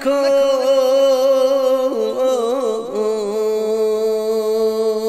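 A man's solo voice singing Persian devotional verse, drawing out one word in a long held note that breaks into a rippling ornamented run about two seconds in, then settles on a lower held note.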